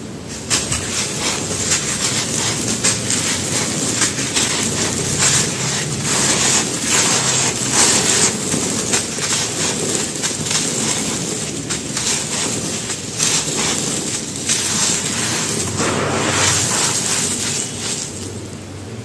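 Dry mud brick crumbling and breaking apart: a dense, continuous gritty crackle of many small crunches.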